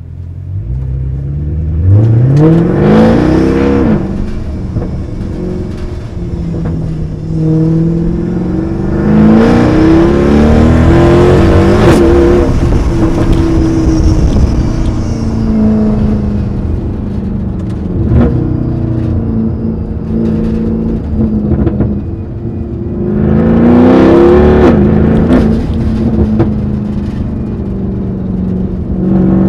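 Mercedes-AMG E63 V8 with a loud exhaust accelerating hard, its revs climbing and dropping sharply at each upshift, in three pulls, with steadier cruising between them.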